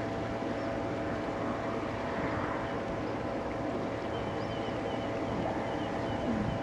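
Boat motor running steadily, a constant hum with a steady whine, under a noisy wash of wind and water.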